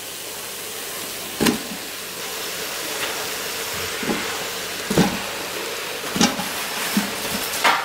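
Butter and onion sizzling in an Instant Pot on sauté mode, with raw cauliflower florets dropped in by hand landing in the pot as about five short thuds.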